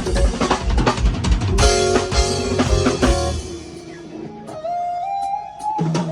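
Music with a drum kit and guitar: a steady beat with a heavy kick drum. The drums drop out about halfway, leaving a few held, sliding notes, then come back in near the end.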